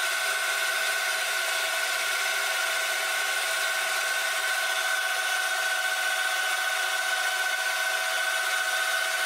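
Milling machine cutter spinning and cutting a groove (fuller) into a high-carbon steel blade: a steady machine whine with a held high tone over a hiss of cutting.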